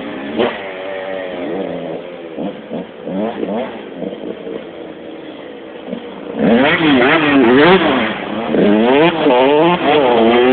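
125 cc two-stroke motocross bike engine revving up and down as it is ridden, the pitch rising and falling in quick sweeps. It is fainter at first and becomes much louder about six seconds in.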